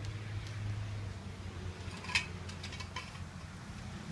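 A few short, light metallic clicks of hand tools working on the wheel bolts, the sharpest about two seconds in, over a steady low hum.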